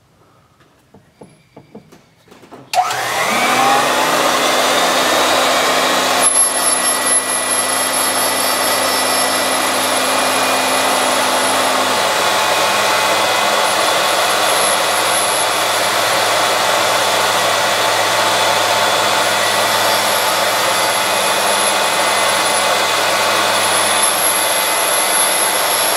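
Valve refacing grinder starting up about three seconds in, then running steadily as its stone resurfaces the face of a Chrysler 440 big-block valve. It makes a constant humming ring with a high whine, the sign of a face cutting evenly all the way round.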